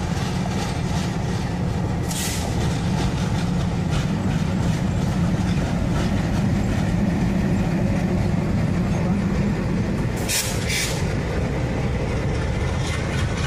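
Diesel locomotive hauling a passenger train slowly past, its engine's low steady rumble giving way to the coaches rolling by. A few sharp clacks from the wheels come about two seconds in and twice around ten seconds in.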